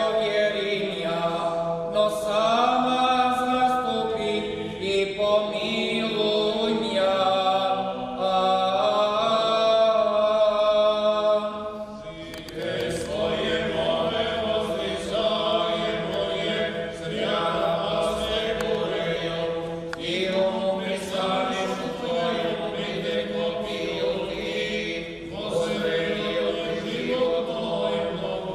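Orthodox memorial-service chant: voices singing a slow, drawn-out hymn with long held notes, dipping briefly about twelve seconds in before the singing picks up again.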